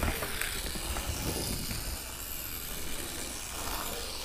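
Tiny Nano Racers Jeep Gladiator RC truck's small electric motor and gears whirring as it drives across a hard floor, with a few light clicks near the start.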